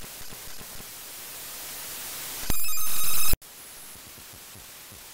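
Television static hiss. About halfway in, a loud electronic beep joins for just under a second, swelling slightly, then everything cuts off abruptly and quieter static resumes.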